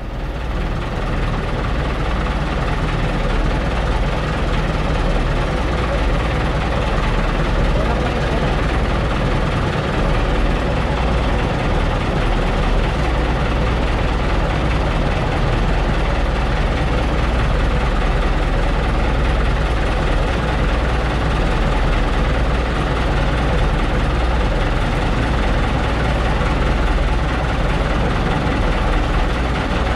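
Fishing outrigger boat's engine running steadily at a low, even speed.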